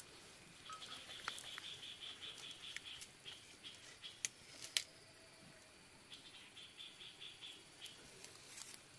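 Faint, rapid, high-pitched chirping trill, about eight pulses a second, in two runs of a few seconds each, typical of a calling insect. A couple of sharp clicks come in the middle.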